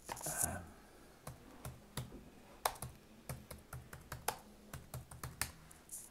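Typing on a computer keyboard: separate, uneven keystrokes, about two a second, as a short search phrase is typed in and entered.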